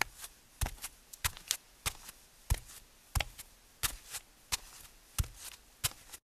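An irregular series of about fifteen short, sharp clicks and taps, two or three a second, cutting off suddenly near the end.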